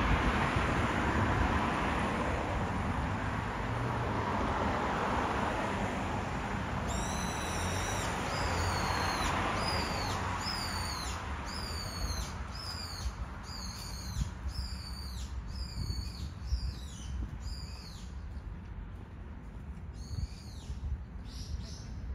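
A bird calling a long run of high, quickly falling notes, a little more than one a second, starting about a third of the way in and thinning out near the end. A steady rushing background noise fades under it.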